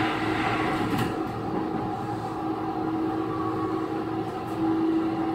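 Onboard running sound of a Chiba New Town Railway 9100 series WN-drive motor car under way on the rails, with a steady hum and a single sharp click about a second in.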